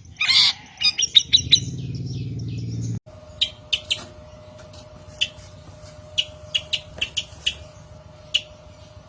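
Long-tailed shrike (cendet) calling: a loud harsh rasping call near the start, then a quick run of sharp notes. After an abrupt cut about three seconds in, a string of short sharp chips, one or two a second, plays over a steady low hum.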